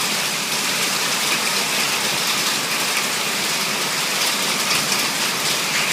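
Heavy downpour falling steadily, with rainwater pouring in streams off the edge of a porch roof.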